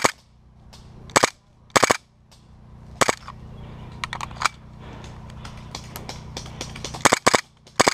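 Gas blowback airsoft pistol, a KWA M93R, firing short rapid bursts of two or three sharp shots with pauses between: bursts about a second in and near two seconds, a single shot at three seconds, and a longer burst near the end. A steady low hum runs underneath.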